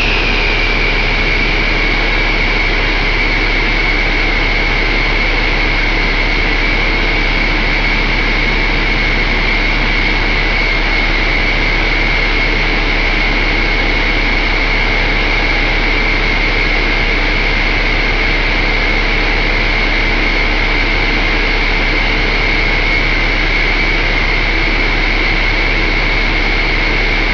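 Cummins ISX15 inline-six diesel engine running steadily on a test stand, with a constant high whine, like a turbocharger, riding over the engine noise.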